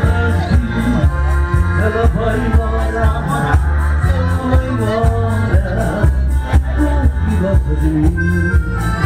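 Upbeat music with a steady, bass-heavy beat and a melodic lead.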